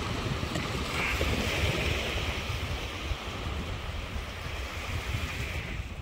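Small waves washing onto a sand beach: a hiss of surf that swells about a second in and eases off near the end. Wind buffets the microphone with a low rumble throughout.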